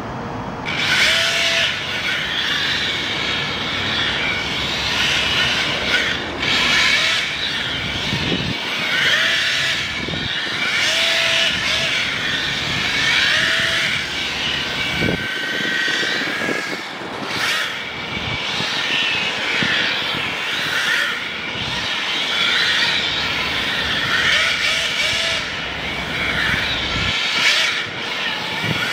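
Team Powers 10.5T brushless motor of a 1/10 RWD RC drift car whining, its pitch rising and falling over and over as the throttle is blipped through drifts, with the tyres scrubbing on asphalt.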